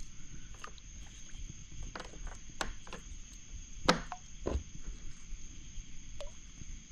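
Insects, likely crickets, keep up a steady high-pitched drone, with scattered small clicks and knocks over it; the sharpest knock comes about four seconds in.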